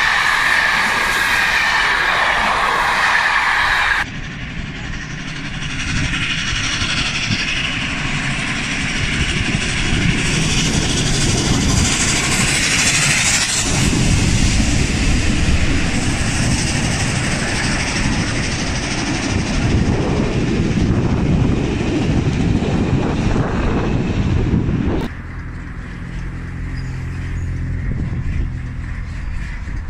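Heritage train hauled by the 141R steam locomotive running on the rails: first the running noise of coaches rolling past close by, then the locomotive and its train moving through the station tracks, with a brief spell of high hissing about twelve seconds in.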